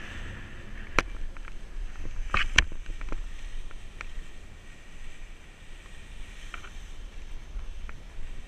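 Wind rumbling on the microphone, with a few sharp clicks and rustles, the loudest about one second and two and a half seconds in.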